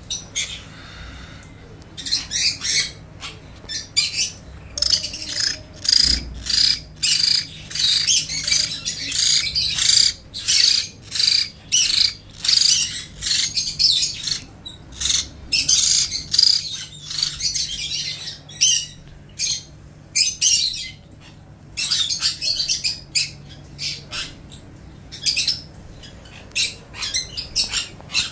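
Baby hill mynas calling over and over with short, harsh squawks, about one or two a second.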